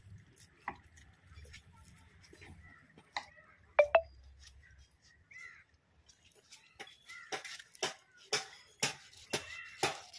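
Hand-sanding a carved, turned wooden table leg with sandpaper: rubbing strokes, sparse at first, then a steady run of about two strokes a second in the second half. A sharp double knock of wood a little under four seconds in is the loudest sound.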